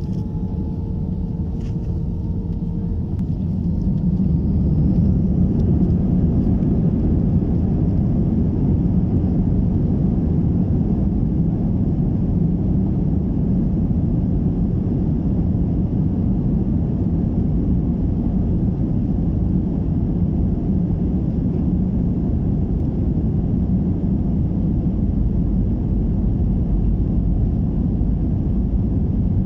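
Jet engines of an Airbus A320-family airliner heard from inside the cabin during the takeoff roll: a loud, steady roar with a deep rumble that grows louder about four seconds in as thrust builds.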